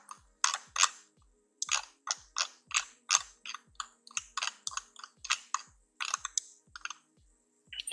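Keys being pressed on a computer keyboard: a string of separate clicks, about three a second, with a short pause about a second in.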